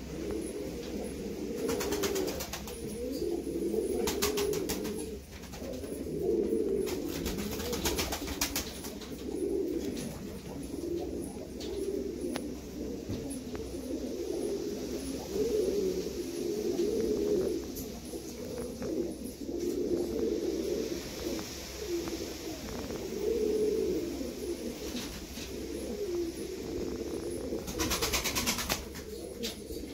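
Domestic pigeons cooing steadily, several overlapping coos running on without a break, with a few short bursts of noise in between.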